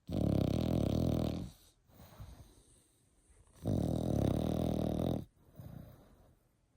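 French bulldog puppy snoring: two loud, fluttering snores about three and a half seconds apart, each lasting about a second and a half, with a faint softer breath after each.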